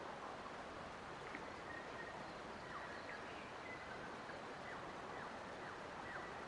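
Forest nature ambience: a steady, even rushing hiss with faint, short bird chirps over it from about a second in until near the end.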